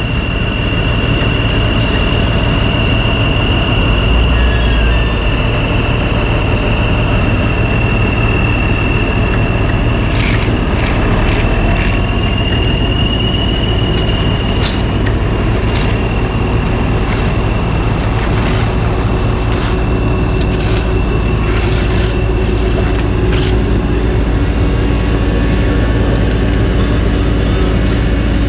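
Heavy diesel dump truck engine running with a steady low rumble, over a thin steady high whine. A run of sharp clicks from a faulty camera gimbal comes in about a third of the way through.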